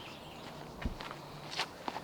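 Footsteps outdoors: a few light scuffs and clicks, with a soft low thud just before a second in.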